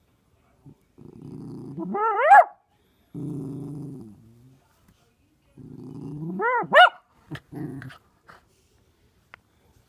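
Miniature poodle puppy play-growling in several low stretches. Twice the growl rises into sharp, high-pitched barks: once about two seconds in and a quick pair near the middle.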